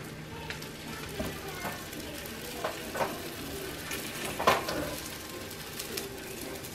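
Oil sizzling steadily in a frying pan as a masa sope fries on the stove. A few light knocks of utensils against the pan come through, the loudest a little past halfway.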